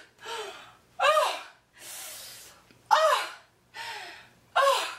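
A woman's short distressed cries and gasps, about one a second, each rising then falling in pitch, with a loud breath about two seconds in.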